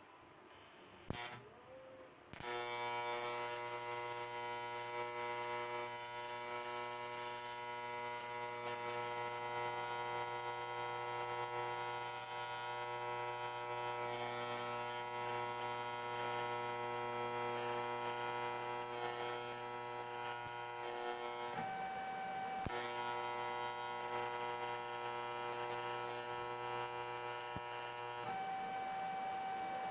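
Steady electric buzz with a low hum from a machine or electric tool. It starts about two seconds in and drops out briefly twice.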